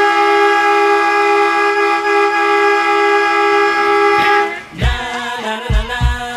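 Hockey goal horn sounding one long, steady chord, cutting off about four and a half seconds in. The goal song then starts with a thumping beat.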